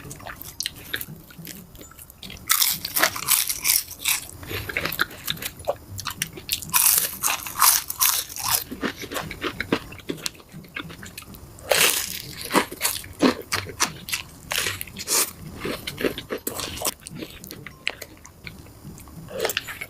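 Close-miked eating: crunchy food bitten and chewed, in several bursts of crisp crackling crunches with quieter chewing between.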